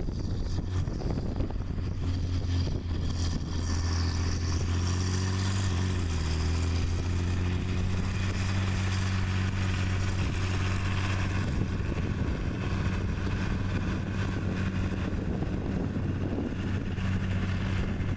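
John Deere track tractor's diesel engine running steadily under load, a constant low hum, as it pulls an AerWay tillage tool through stubble. A hiss rises over it for several seconds in the middle.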